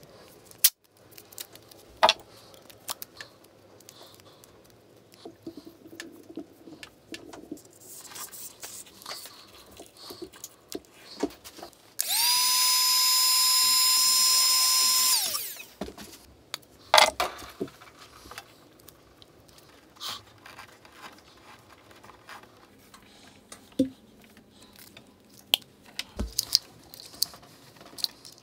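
Hot-air heat gun switched on for about three and a half seconds near the middle, its fan motor giving a loud steady whine. Scattered small clicks and knocks before and after.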